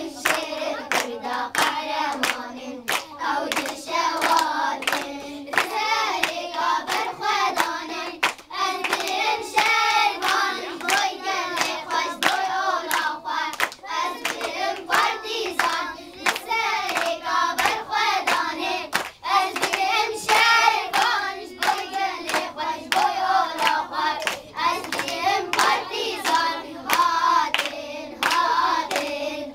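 A group of children singing a song together while clapping their hands to a steady beat.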